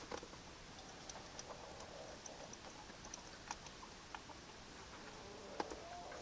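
Faint scattered clicks and ticks of a chainsaw chain and bar being handled and slipped back onto the saw, with one sharper click about five and a half seconds in.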